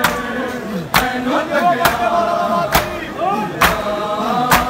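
A large crowd of men beating their chests in unison (matam) about once a second, each strike a sharp slap and the loudest sound. Between the strikes, men's voices chant the noha.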